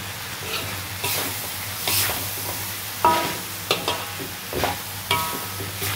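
A metal spatula scraping and knocking against a wok while beef liver and vegetables are stir-fried, over a steady sizzle. There are about half a dozen sharp scrapes, roughly one a second, and some ring briefly off the metal of the pan.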